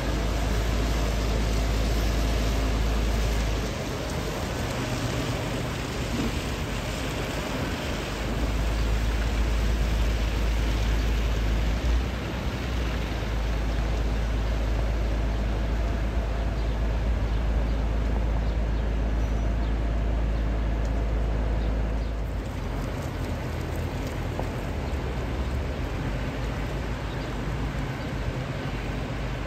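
City buses running on a wet street in the rain, with a steady hiss of rain and tyres. A deep low rumble drops away about four seconds in, comes back around eight seconds and fades after about twenty-two seconds.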